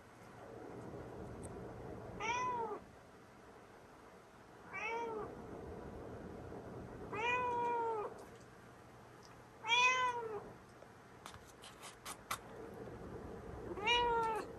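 Domestic cat meowing five times, each meow a short call that rises and then falls in pitch, spaced a few seconds apart. A brief run of light clicks comes between the fourth and fifth meows.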